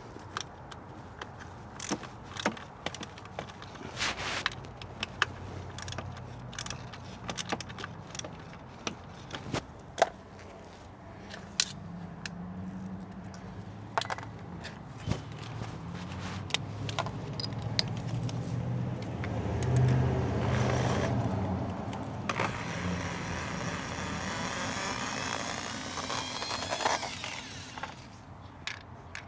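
Metal hand tools clinking and clicking against the scooter's plastic bodywork as the panel fasteners are worked loose. Over the second half, a low engine hum from a passing motor vehicle swells, peaks and fades.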